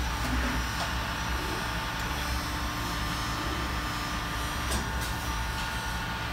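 Steady hum of a 1996 Trumpf TrumaBend V85 CNC hydraulic press brake running idle, its hydraulic pump on, with several steady tones over a low rumble. A faint click comes about five seconds in, as one of the tones stops.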